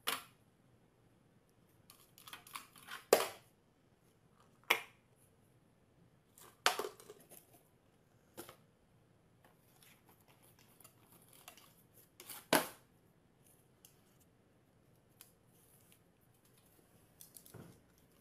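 Scattered short taps and rustles of a tin can and a cardboard box being handled on a glass tabletop, quiet in between.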